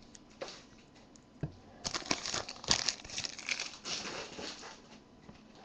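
Foil wrapper of a Panini Select football card pack crinkling and tearing as it is opened by hand. It comes as a run of short crackly bursts from about two seconds in until near the end.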